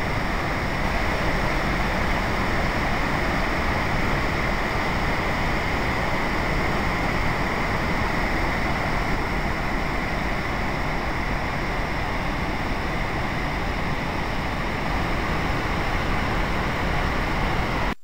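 A wide, low waterfall pouring over stepped rock ledges with a steady rushing sound, carrying a heavy flow with the dam upstream open.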